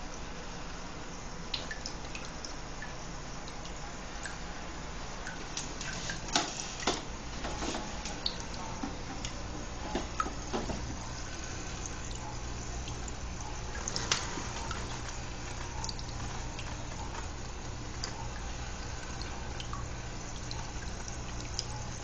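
Tabletop fountain: water dripping and trickling off the rim of a stone-filled glass bowl into a ceramic pot, with scattered louder drips, over a steady low hum.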